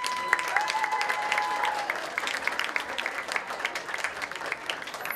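Audience applauding steadily, a dense patter of hand claps. During the first two seconds a held high whistle-like tone sounds over the clapping, dipping slightly in pitch before it stops.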